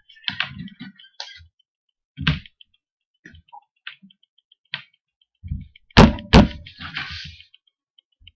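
Two people in a fit of near-silent laughter, with short breathy bursts and gasps, and two loud sharp knocks about six seconds in, a moment apart.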